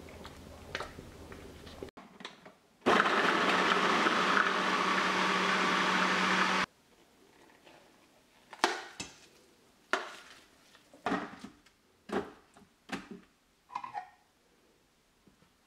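Electric blender or food processor running steadily for about four seconds, grinding garlic and ginger, then cutting off sharply. About two seconds later come a string of sharp knocks of a glass jar against a steel bowl as the ground paste is tipped out.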